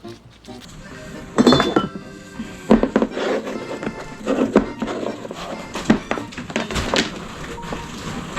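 Dishes and utensils clinking and knocking as they are handled, a string of sharp strikes a second or so apart, over light background music.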